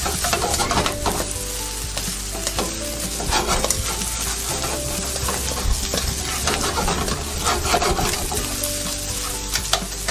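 Fried rice with scrambled egg sizzling in oil in a wok on high heat while a spatula stirs and scrapes it, with repeated scraping strokes against the pan over a steady sizzle.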